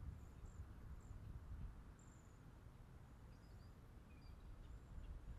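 Near silence: a faint uneven low rumble, like wind on the microphone, with a few faint high chirps.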